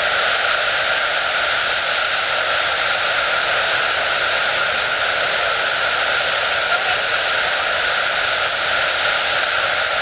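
Murchison Falls, the Nile River's whitewater pouring over the rocks in a loud, steady rush of water, more hiss than low rumble.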